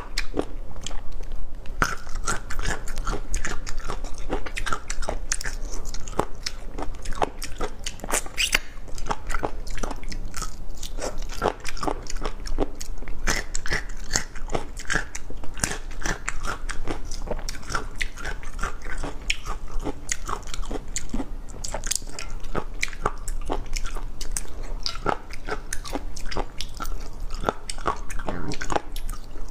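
A person chewing crunchy food close to a clip-on microphone: dense, irregular crunching and popping clicks with wet mouth sounds, continuing without pause.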